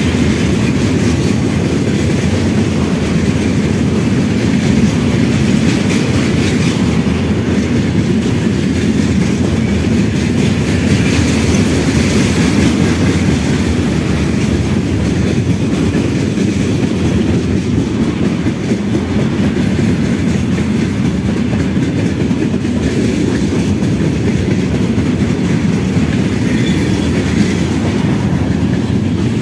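Freight train of open-top steel gondola wagons rolling past close by: a loud, steady rumble of steel wheels running on the rails.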